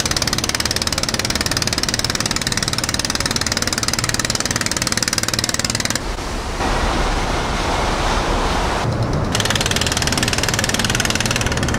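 Motorized banca outrigger canoe's engine running at high speed alongside a ship, mixed with the steady rush of its wake, heard from high on the ship's deck. About six seconds in it switches abruptly to a duller rushing noise for about three seconds, then the engine and water noise returns.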